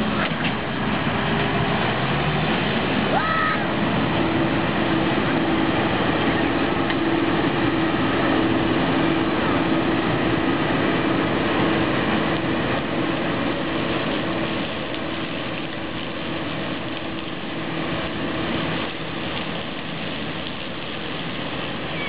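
Claas Lexion 450 combine harvester running under load as it drives into standing maize with its corn header: a steady drone of engine and threshing machinery with a held hum, easing a little in loudness over the second half.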